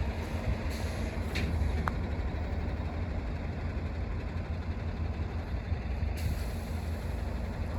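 Steady low rumble of a freight train rolling past, with a brief thin squeal about two seconds in.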